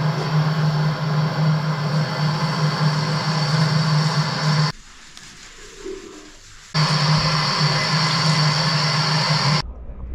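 A steady machine hum with rushing air noise, which cuts out for about two seconds midway, starts again and stops abruptly near the end.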